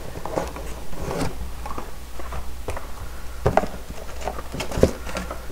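Parts boxes and packaging handled and set down on a rubber bench mat: scattered light knocks and rustling, two sharper knocks in the second half, over a steady low hum.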